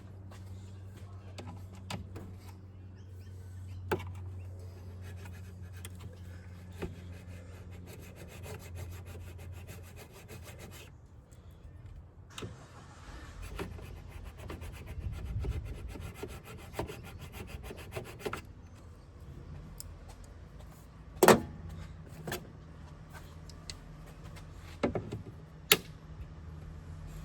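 Scraping and rubbing at the plastic airbox of a 2018 Holden Colorado as a broken lid tab is worked off, with scattered small clicks and two sharp loud clicks late on, over a steady low hum.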